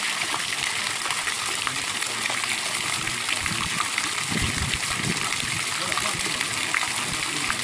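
Garden fountain jets spraying and falling into a water-filled basin: a steady hiss and splash of falling water.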